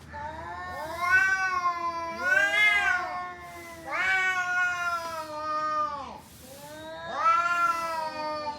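A cat yowling: three long, drawn-out calls, each rising and then falling in pitch.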